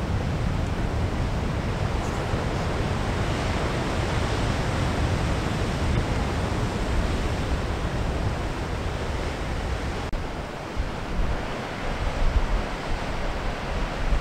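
Steady rush of wind and breaking surf. About ten seconds in it turns uneven, with gusts of wind buffeting the microphone.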